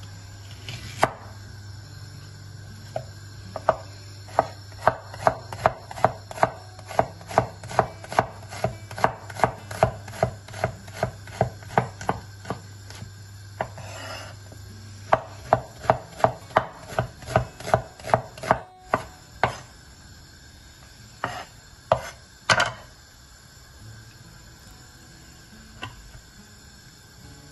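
Raw pumpkin being grated by hand on a grater: a rhythm of sharp scraping strokes, about two a second, with a short break about halfway and a few scattered strokes near the end.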